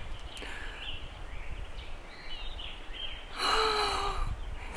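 A woman crying: about three seconds in, a loud, shaky sobbing breath with a faint voiced tone, lasting about a second. Before it, only low steady outdoor background noise with a few faint chirps.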